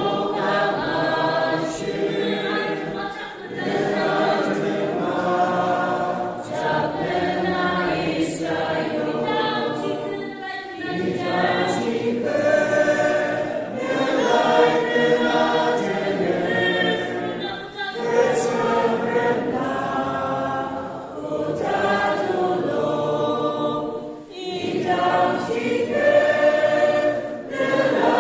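A church choir singing a hymn together, in phrases several seconds long with brief breaks between them.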